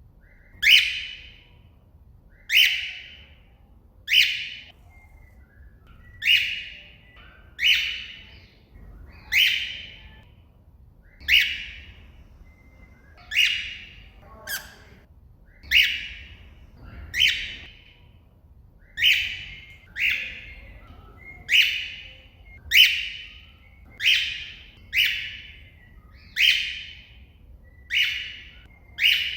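A cockatiel repeats its shrill contact call, one short call about every one and a half to two seconds: the calling of a bird calling out to another cockatiel.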